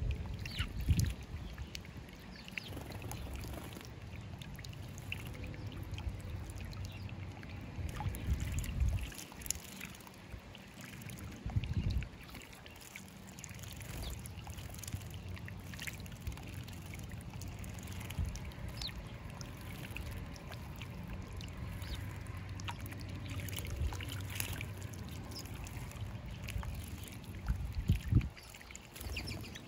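House sparrows bathing in a stone birdbath, splashing and fluttering in the water over a steady trickle of water from a small bubbler. The splashing comes in louder bursts a few times, the loudest near the end.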